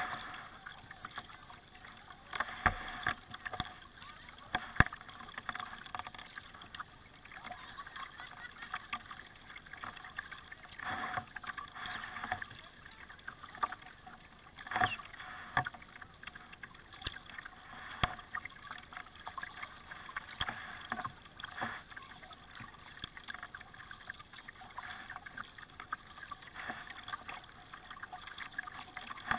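Kayak paddling on a river: paddle blades dipping and water washing against the kayak hull, with irregular sharp knocks every few seconds.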